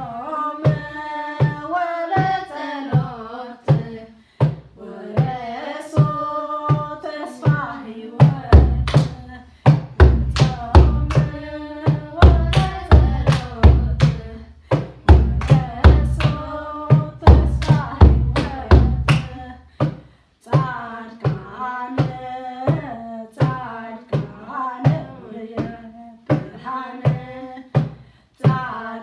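Children singing an Eritrean Orthodox mezmur (hymn) over hand clapping and a steady drum beat, about two beats a second. The deep drum strokes are heaviest through the middle of the passage.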